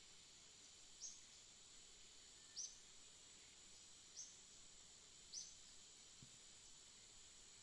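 Faint bird chirping: four short, high chirps spaced about a second and a half apart. Behind them runs a steady high insect drone.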